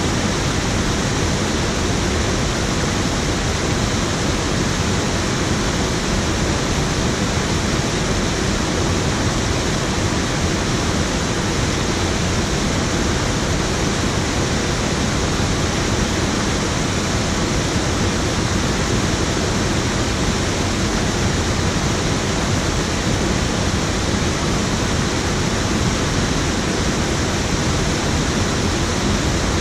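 Water pouring over a small weir into a river pool, an unbroken steady rush.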